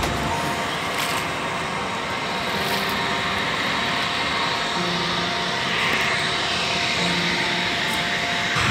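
Steady mechanical drone like a distant engine or motor, with a faint constant hum and a faint falling whine near the end.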